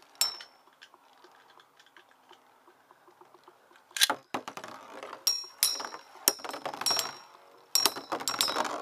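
Metal Fight Beyblade tops spinning in a stadium: a faint steady whir, then a run of sharp metallic clinks with a brief ring as the tops strike each other, coming quicker near the end.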